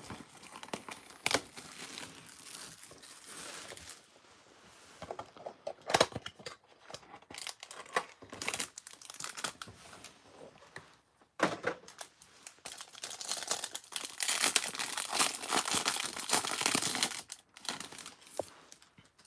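Packaging of a trading-card hobby box being torn open and crinkled by hand: scattered rustles and tears, with a longer stretch of continuous crinkling about two-thirds of the way in.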